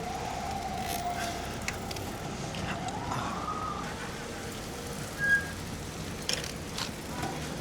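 An emergency vehicle siren wailing in slow glides down and up over steady city traffic noise, with one short, sharp, loud sound about five seconds in.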